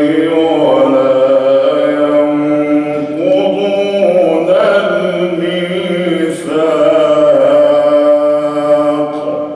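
A male reciter chanting the Quran in long, drawn-out melodic phrases, tajweed-style, with held notes that slide in pitch. The voice stops near the end and fades out.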